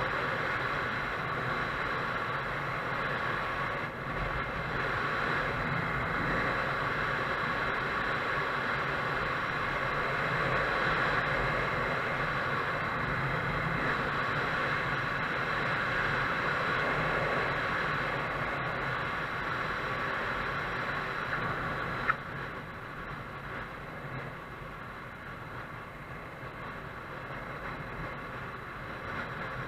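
Motorcycle riding at road speed: a steady rush of wind noise on the microphone over the engine running. A single sharp click about 22 seconds in, after which the sound turns quieter.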